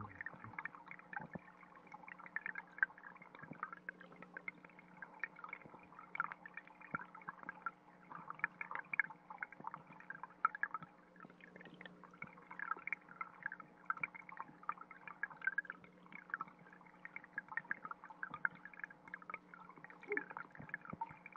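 Underwater sound of a shallow stream heard through a submerged GoPro: a dense, continuous crackle of small ticks and pops from trickling water, over a steady low hum.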